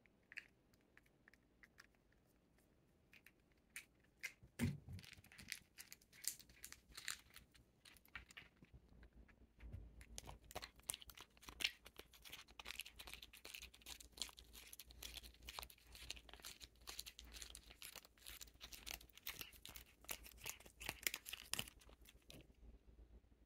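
A cat licking paste treat from a plastic squeeze pouch held in a hand: quick, faint, wet licking clicks mixed with crinkling of the pouch. The clicks start a few seconds in, thicken, and stop shortly before the end, with one soft thump about four and a half seconds in.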